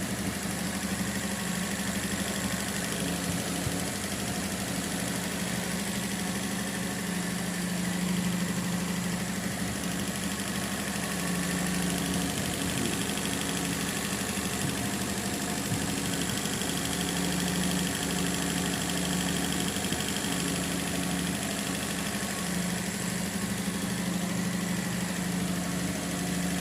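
Mitsubishi Minicab 550 cc engine idling steadily.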